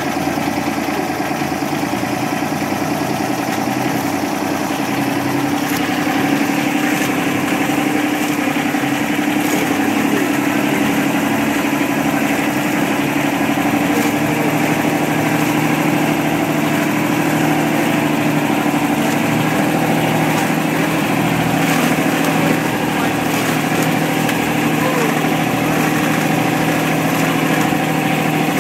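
Boat engine running steadily, a constant drone with a few steady hum tones that shift slightly in pitch a couple of times.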